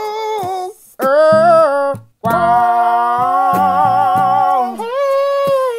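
A voice singing long, wavering held notes, a few in a row with short breaks between, over guitar chords strummed underneath.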